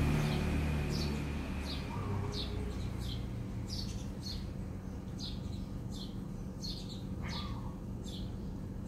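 A bird calling a short, high, falling chirp over and over, about two a second, with a lower brief call about seven seconds in.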